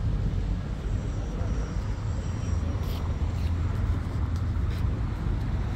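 Wind buffeting the phone's microphone: a steady low rumble that rises and falls, with a few faint ticks in the middle.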